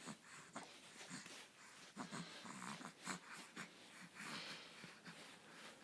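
Baby's faint, short grunts and snuffly breaths, several a second, with no words.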